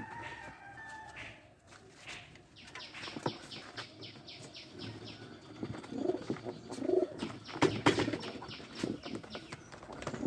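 Pigeons flapping their wings hard in a wire-mesh loft as one is caught by hand, a fast run of wingbeats. A few low pigeon coos follow from about six seconds in.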